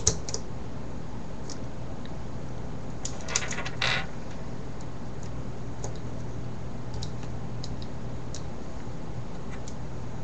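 Small plastic Rubik's 4x4 cube pieces clicking and clattering as they are handled and fitted into the cube, with a sharp click at the very start, a short clatter about three and a half seconds in and a few faint ticks, over a steady low hum.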